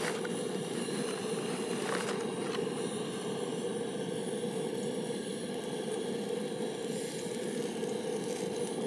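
Breaded fish fillets frying in a metal pan: a steady sizzle, with a few light clicks in the first few seconds as fillets are laid in.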